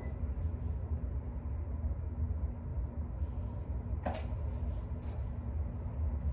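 Steady low background hum with a faint, steady high whine. A single soft knock about four seconds in, a slide sandal stepping onto the doorway threshold, and a fainter tap about a second later.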